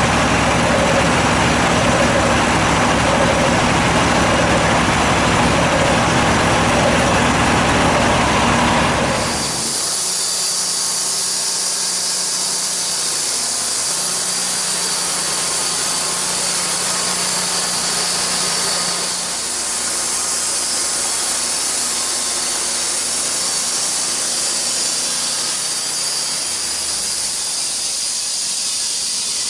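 Homemade sawmill running as it cuts a log. About nine seconds in, the heavy, full-bodied sound drops away, leaving a steady high hiss over a light hum.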